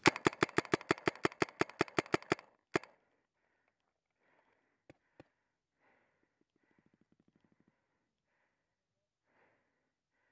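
Paintball marker firing a rapid string of about sixteen shots, roughly seven a second, then one more shot. Two single shots follow a couple of seconds later, and later a faint quick rattle of fire.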